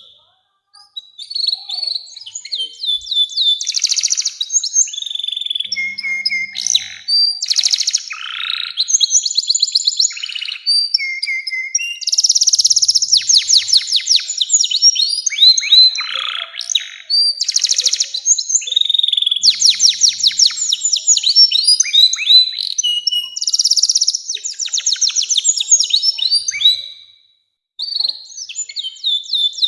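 Domestic canary singing a long, loud song of rapid trills and rolls, phrase after phrase, with a brief pause near the end.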